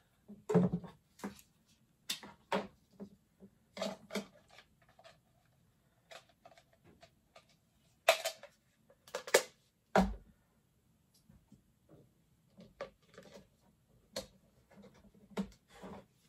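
Plastic Mr. Potato Head parts being handled and pushed together: scattered light clicks and rustles of hard plastic pieces, with one heavier knock about ten seconds in.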